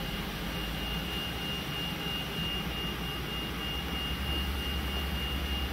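Steady background hum with a thin, high steady whine running through it and a low rumble that grows slightly louder about four seconds in.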